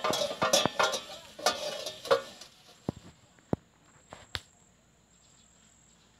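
Hand dish-washing: a scrubber rubbing and scraping a plastic plate, with clatter and clinks of plates and utensils, busiest in the first half, then a few separate sharp clinks. A steady high insect drone, like crickets, runs underneath.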